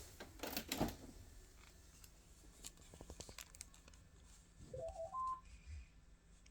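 Clicks and knocks of handling, then about five seconds in a short electronic chime of a few clear notes stepping upward in pitch, from a 2008 Samsung TV.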